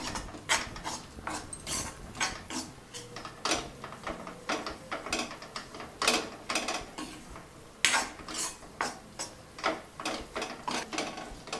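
Steel spatula scraping and stirring gram flour roasting in ghee in a metal kadai, in repeated strokes about two a second.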